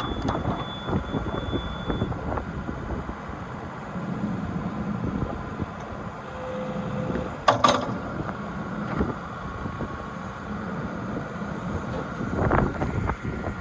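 Diesel engine of a JCB 8085 ZTS excavator running steadily, with a sharp knock about seven and a half seconds in.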